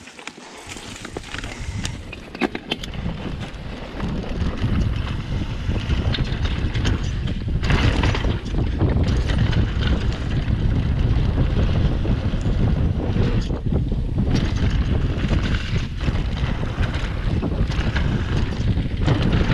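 Wind buffeting an action camera's microphone over the rumble and rattle of a mountain bike rolling downhill on a dirt trail, growing louder over the first few seconds as the bike gathers speed and then staying steady.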